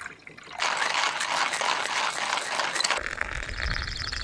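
A collapsible electric kettle coming to the boil: a loud, steady rushing hiss that starts abruptly about half a second in. Near the end, hot water is poured from the kettle's spout into a metal pour-over coffee dripper, a thin trickling stream over a low rumble.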